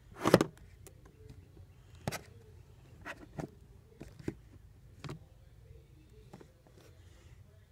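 Handling noise: scattered knocks and clicks of small hard objects being moved about, the loudest a short clatter about a third of a second in, then about half a dozen lighter taps.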